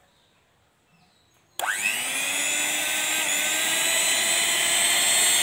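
Electric hand mixer with spiral dough hooks switched on about a second and a half in: the motor spins up to speed in a fraction of a second, then runs steadily with the pitch creeping slightly higher, the hooks turning unloaded in the air.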